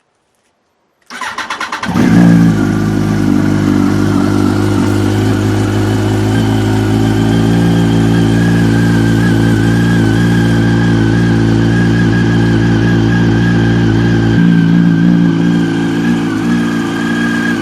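2006 Yamaha YZF-R1 inline-four engine cranked over by the starter about a second in, catching within a second with a brief rev, then running at a steady idle. Its low tone drops off about three-quarters of the way through.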